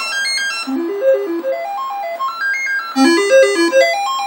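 Commodore 128's 6581 SID sound chip playing the diagnostic cartridge's sound test: runs of short beeping notes stepping up in pitch, starting over every two seconds or so. The run that begins about three seconds in is louder.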